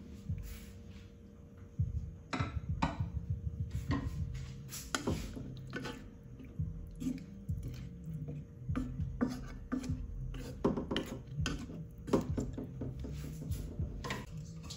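Wooden spoon stirring vegetables and water in a wok, with irregular knocks and scrapes of the spoon against the pan.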